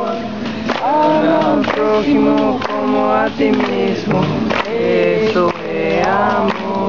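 A group of voices singing a chant together in long held notes, over sharp percussive beats about twice a second.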